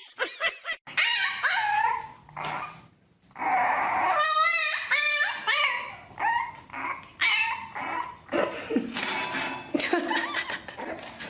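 A dog vocalizing in a series of short pitched whining cries and yips, with a wavering, drawn-out cry about four to five seconds in.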